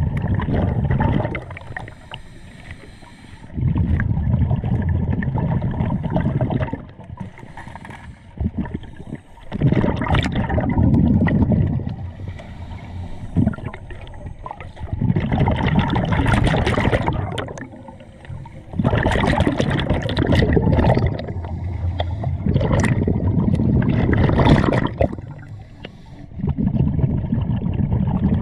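Scuba diver breathing through a regulator, heard underwater: a long bubbling rush of exhaled air every few seconds, with quieter inhalations between.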